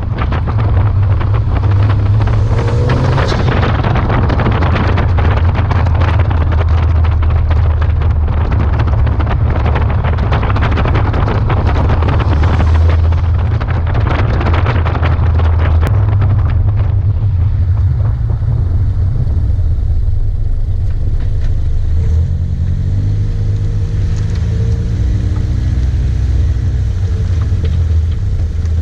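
Honda Civic (10th gen) with a PRL Cobra cold air intake being driven, its 1.5-litre turbocharged four-cylinder and intake heard under heavy wind buffeting on an outside-mounted microphone. The wind noise is loudest in the first half. Over the last several seconds the engine climbs in pitch as the car accelerates.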